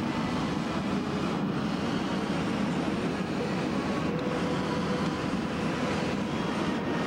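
Steady rumble of a moving vehicle, even throughout, with a few faint steady whines above it.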